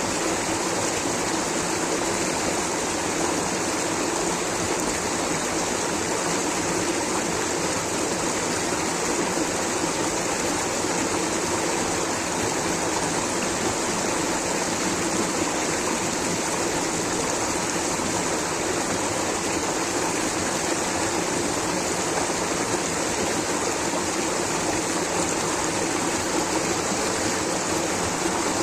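Rushing water, a steady, unbroken rush with no change in level.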